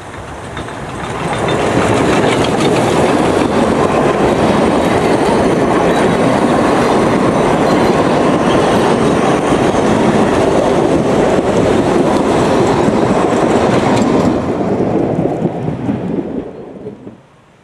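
Narrow-gauge steam train passing close by: the Saxon VII K tank locomotive 99 761 goes past, followed by its coaches rolling by on the rails. The sound swells about a second and a half in and stays loud, then falls away and stops abruptly near the end.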